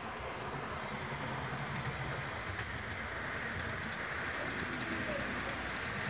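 Model trains running on a layout: a steady rumble and whir of the trains on the track, with light clicking from about two seconds in.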